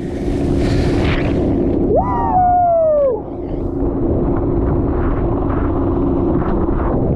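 Motorboat engine running under heavy wind rumble on the microphone. A person lets out one long yell about two seconds in, rising and then falling in pitch.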